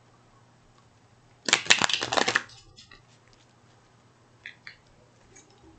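Tarot cards being shuffled: a quick riffle of rapid card clicks lasting about a second, followed a couple of seconds later by two faint taps as cards are handled.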